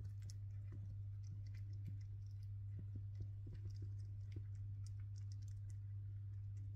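Pet chipmunk cracking and nibbling seeds: faint, irregular little clicks as it works the husks with its teeth, over a constant low electrical hum.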